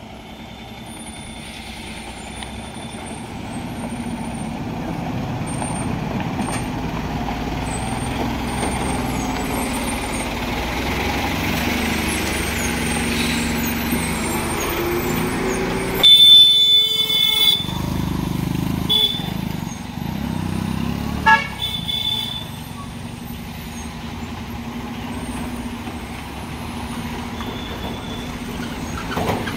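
Heavy Ashok Leyland truck's diesel engine pulling under load, growing louder as the truck passes close by. About halfway through, a vehicle horn blows for about a second and a half, then a short toot a few seconds later.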